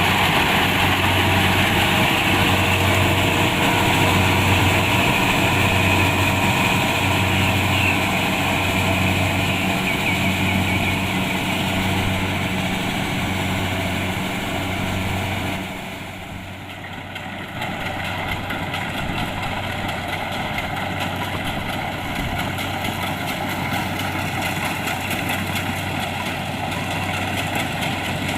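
Kubota DC-70 Plus rice combine harvester running steadily, its diesel engine and machinery droning. The level drops briefly a little past halfway, then continues a little quieter.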